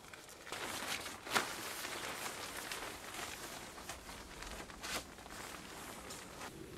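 Rustling of a rain poncho being pulled on over the head and shoulders, with two sharp clicks partway through.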